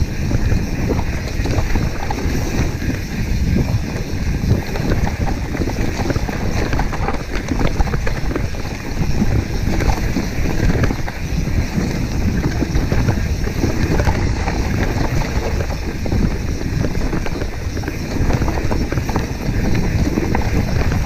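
Mountain bike descending a dirt singletrack at speed: a steady low rush of wind on the rider-mounted microphone, with tyres running over dirt and dry leaves and the bike rattling with dense, irregular knocks over the bumps.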